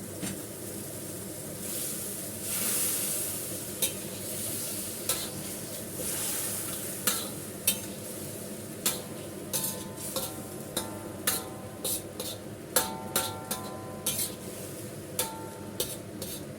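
Metal spatula stirring ribs and bitter melon in a pan of simmering sauce, over a steady sizzle. Knocks against the pan come more often in the second half, each ringing briefly like metal.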